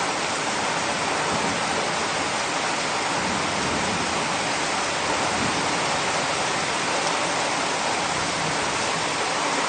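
Torrential thunderstorm rain pouring down steadily, an even, unbroken hiss.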